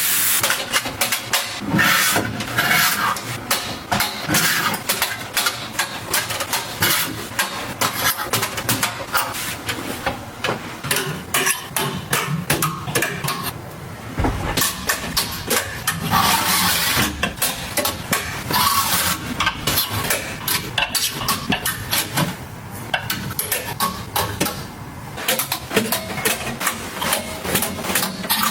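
Items being handled and set down: a dense run of small clicks, taps and knocks mixed with rustling, as things are unpacked and arranged.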